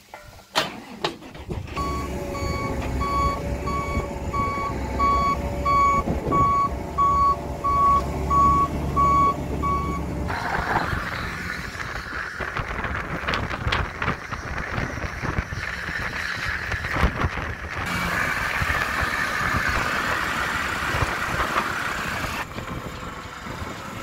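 A vehicle's reversing alarm beeping about twice a second over a running diesel engine, stopping after about ten seconds. Then a steady rushing noise with crackling takes over.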